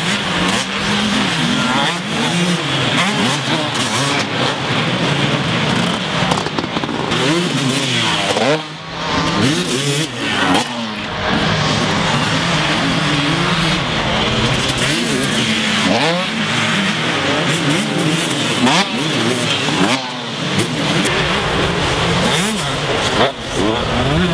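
Several two-stroke motocross bikes revving hard and accelerating, their engine pitch rising and falling over and over as the throttle opens and closes, with more than one bike heard at a time.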